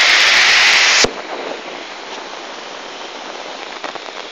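A loud, steady rush of flooding water for about a second, then it cuts off abruptly. After that comes a much quieter hiss of steady rain with scattered drops ticking.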